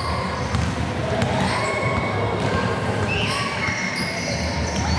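Basketball game play: a ball bouncing on the court in repeated sharp thuds, with short high squeaks over it and voices in the background.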